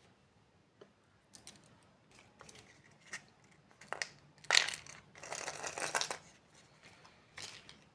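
Surprise egg and its packaging being opened by hand: scattered small clicks and taps, a sharp crack about four and a half seconds in, then about a second of crinkling, crackling wrapper.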